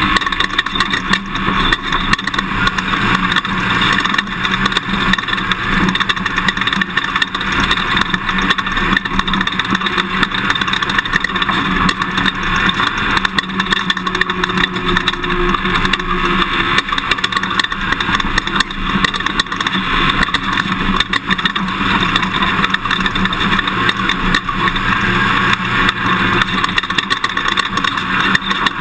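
Toyota Tundra pickup driving a dirt off-road course, engine and road noise steady, with constant small knocks and rattles.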